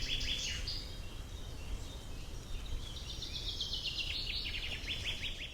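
Countryside ambience: a songbird sings fast trilled phrases that drop in pitch, one ending about half a second in and another starting about three seconds in, over a steady low rumble of wind or distant noise.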